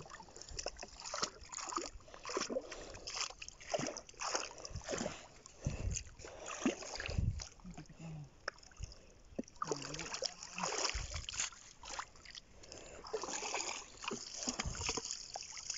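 Shallow water splashing and sloshing irregularly as a seine net is hauled by hand through it to the bank, with a few low thumps.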